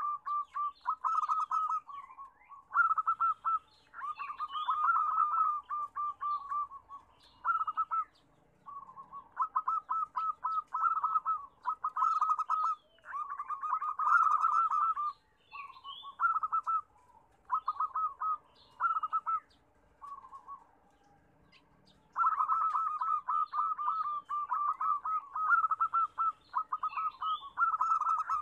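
Zebra doves (perkutut) cooing: phrase after phrase of rapid, staccato trilled coos, each phrase a second or two long with short breaks between, running without a break near the end.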